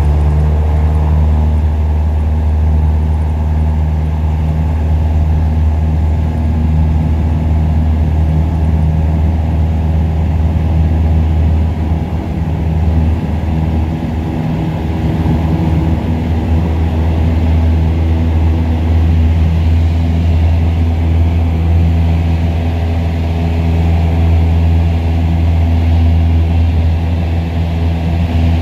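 Piper PA-28-181 Archer II's four-cylinder Lycoming engine and propeller running steadily, heard from inside the cabin, with a low, even hum that holds its pitch.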